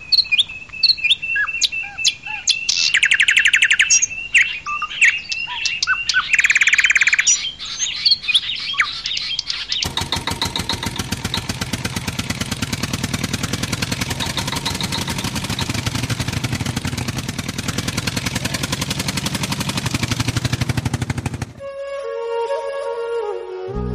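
Birds chirping and calling, with quick trills, for about the first ten seconds. Then a loud, steady, rapidly pulsing mechanical noise runs for about eleven seconds and stops abruptly. Soft music starts near the end.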